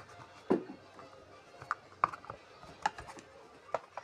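Rubber angle-grinder backing pads being handled and set down on a cloth-covered table: a few scattered clicks and knocks, the loudest a dull knock about half a second in.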